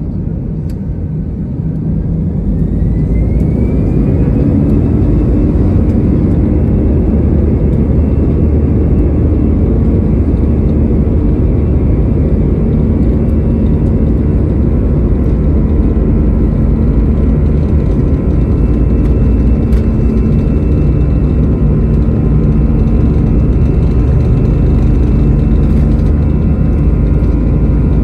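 Airbus A320-214's CFM56 turbofan engines heard from the cabin over the wing, spooling up with a rising whine over the first few seconds to takeoff thrust. They then run on steadily and loudly with a low rumble through the takeoff roll.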